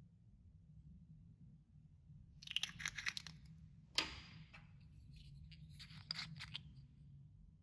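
Clear slime being worked by hand, giving two runs of quick crackling clicks with one sharp pop between them, the loudest sound, from air pockets in the slime.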